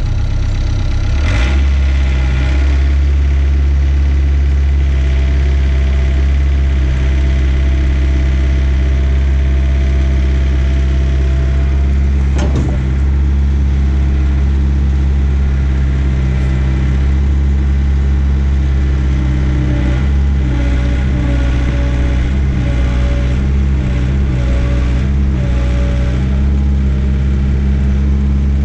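Mini excavator's diesel engine running steadily, throttled up about a second in, with a single clunk near the middle. From about two-thirds of the way through, the engine note wavers as the hydraulics take load while the machine tracks and tilts over the trench spoil.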